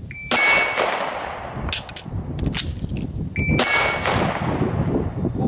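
A shot-timer beep, then two 9mm shots from a Glock 17-based PDW about three seconds apart, each followed by the ringing of a struck steel target. Between the shots come the clicks and clacks of an emergency reload: the empty magazine dropped and a fresh one seated.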